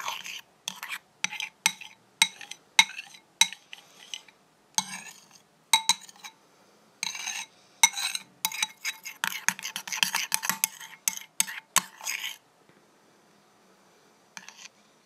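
A utensil scraping and clinking against a bowl in quick, repeated strokes, stirring colour into a slime mixture. The strokes stop about twelve seconds in, with one more brief scrape near the end.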